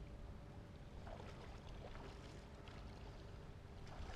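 Low wind rumble on the microphone with faint water lapping at the bank and a few small ticks.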